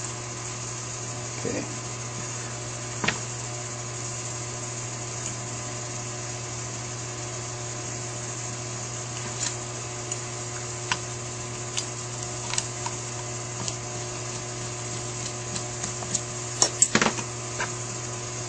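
Small metal clicks and taps from a screwdriver and screws fastening the secondary diaphragm cover onto a Holley 4000 four-barrel carburetor, scattered through, with a cluster of louder clicks near the end. A steady hum runs underneath.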